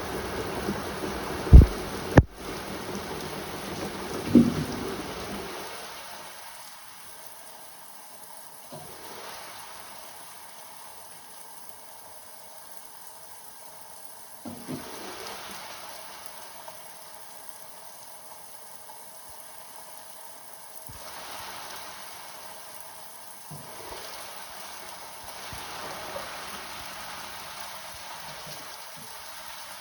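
Rain falling steadily, louder and heavier for the first several seconds, with a few sharp thumps early on.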